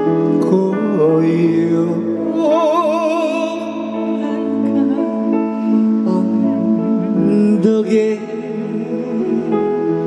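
Live trot song playing over the stage sound system: sustained backing chords under a wavering lead melody line.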